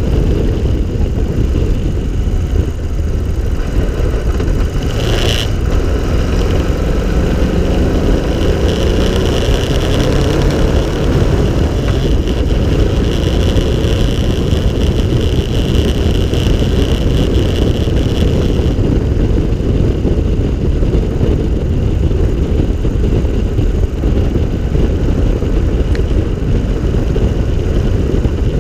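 Open three-wheeled cyclecar on the move: its engine running under steady wind buffeting on the microphone, with a brief sharp tick about five seconds in.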